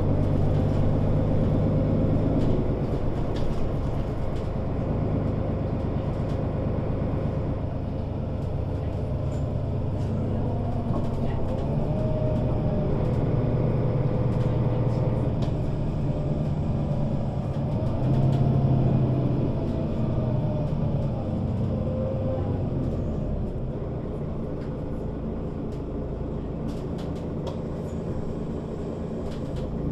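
Mercedes-Benz O 530 Citaro Facelift city bus heard from inside while driving: its diesel engine's drone rises and falls in pitch and loudness, loudest about two-thirds of the way through and easing off near the end, with small rattles and clicks from the bodywork.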